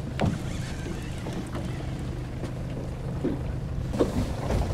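Steady low hum of a boat's motor idling, with wind and water noise and a few faint ticks.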